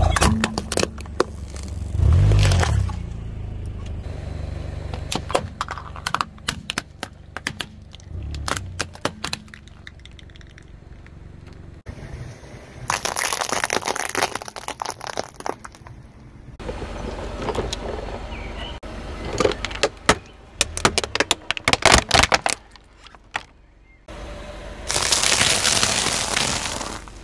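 A car tyre rolling slowly over toys and other small objects and crushing them: runs of sharp cracks, snaps and crackles as plastic and crunchy things break, with stretches of gritty crunching under the tyre in between.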